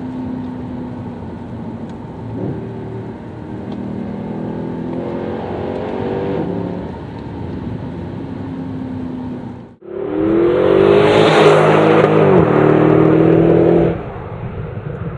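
Mercedes C63 AMG Black Series 6.2-litre V8 with a Supersprint X-pipe and rear mufflers, heard from inside the cabin as it drives, its pitch stepping up and down through gear changes. After a sudden cut about ten seconds in, the engine is much louder and fuller, rising in pitch under acceleration for about four seconds, then drops back to a quieter steady note.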